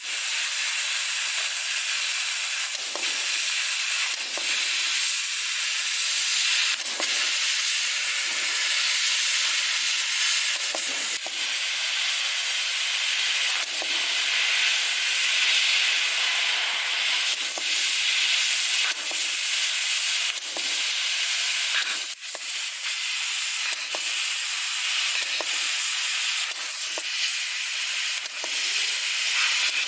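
CNC fiber laser cutting steel plate: a steady hiss from the assist-gas jet at the cutting head, with faint ticks now and then.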